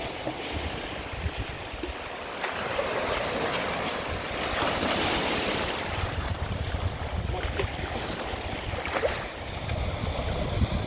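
Small sea waves breaking and washing over the sand in the shallows, with wind buffeting the microphone; one wash swells louder about four seconds in.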